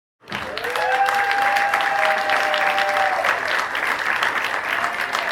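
Concert audience applauding and cheering, dense clapping that starts abruptly, with a few long held cheering shouts over it in the first three seconds.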